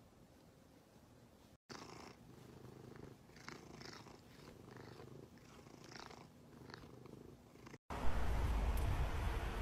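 A grey long-haired cat purring steadily while its chin is scratched. Near the end it cuts to a louder, steady outdoor noise.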